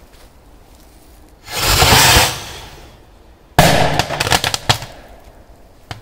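A large firecracker going off inside a closed washing machine drum: a loud rushing blast swells about a second and a half in and fades, then a sudden sharp bang comes a couple of seconds later, followed by a quick run of crackles.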